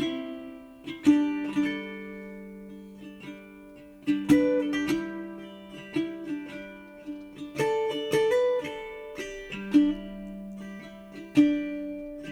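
Background music: a gentle plucked-string melody, ukulele or acoustic guitar, with notes and chords struck and left to ring.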